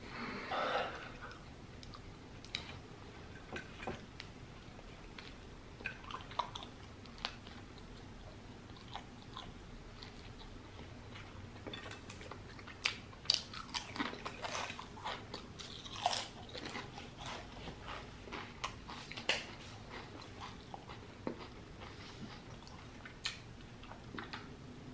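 Close-up chewing and biting of a cheesesteak sandwich: scattered soft mouth clicks and bites, busiest in the middle.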